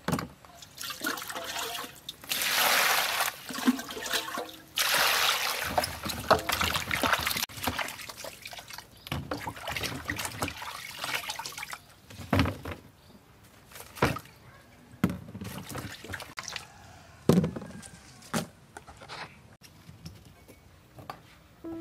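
Peeled sugarcane sticks being washed by hand in a plastic basin of water: splashing and sloshing for the first half or so, then a few separate hollow knocks as the wet pieces are set into a plastic colander.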